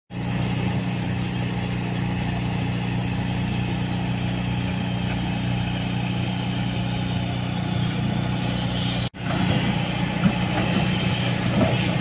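Heavy diesel construction machinery, an excavator or dump truck engine, running steadily with a low even drone. The sound cuts out for an instant about nine seconds in, then resumes with more uneven clatter over the engine.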